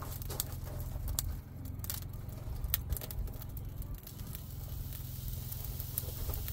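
Bacon-wrapped chicken rolls being set down on a hot cast-iron grill grate: crackling and sizzling as the meat meets the grate, with a few sharp taps and clinks of the pieces being placed.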